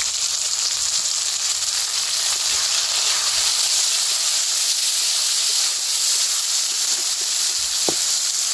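Freshly added chopped tomatoes and green chillies sizzling in hot oil in a metal wok: a steady, high hiss of frying.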